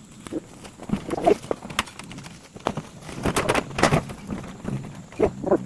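Irregular knocks, clunks and footsteps, with a few short creaks or squeaks about a second in and near the end.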